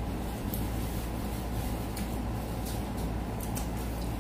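Steady low room hum with a few faint, short clicks scattered through it.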